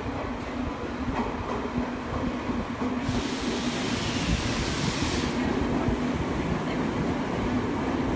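Subway train running: a steady rumble with a low hum, and a hiss that swells for about two seconds in the middle.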